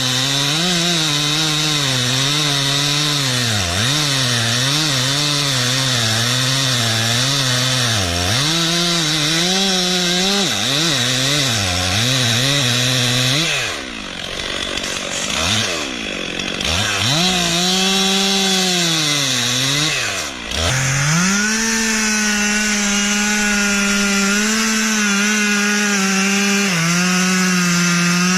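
Two-stroke chainsaw cutting into a tree trunk at high revs, its pitch dipping again and again as the chain bogs in the cut. About halfway through, the engine falls away sharply twice, then winds back up and runs steadily at full throttle to the end.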